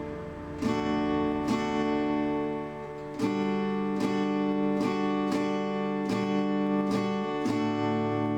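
Background music: acoustic guitar strumming sustained chords, a new strum roughly every second.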